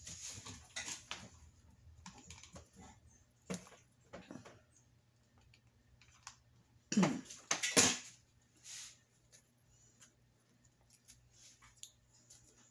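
Rustling and light clicking as artificial flowers and florist wire are handled and bunched together. Two louder bursts come about seven and eight seconds in.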